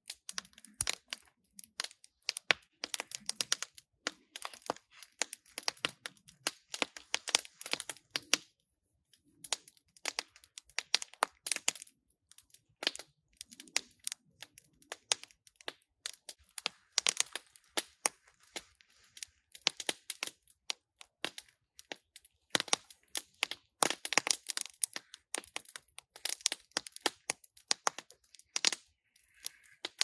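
Campfire crackling with frequent sharp, irregular pops and snaps. Nylon hammock fabric and rope rustle as they are handled.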